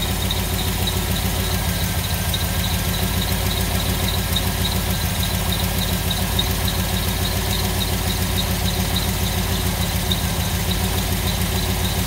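Carbureted car engine idling steadily on its first run after a timing chain replacement, with a faint, even high-pitched chirp repeating about four times a second.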